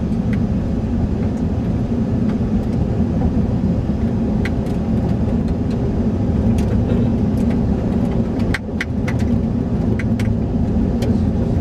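Car driving at road speed, heard from inside the cabin: a steady low rumble of engine and tyres on the road, with a few faint ticks and rattles scattered through it.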